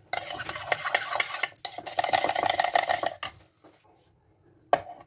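Metal spoon stirring yogurt in a small stainless steel bowl, scraping and clinking against the bowl for about three seconds before stopping. A single short knock follows near the end.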